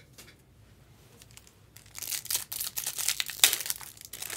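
Foil wrapper of a Bowman Chrome baseball card pack being torn open and crinkled, a dense crackle starting about two seconds in, with one sharp crack as the foil gives, which is the loudest moment.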